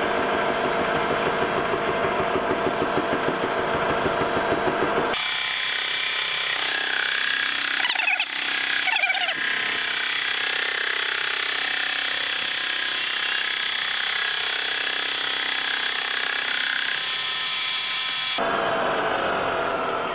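Wells Index vertical mill running a boring head on power down-feed: first the spindle's pulsing running sound, then from about five seconds in a loud high-pitched cutting noise with steady ringing tones as the boring bar bores out the brazed cast iron gear hole, dropping back to the plain running sound near the end.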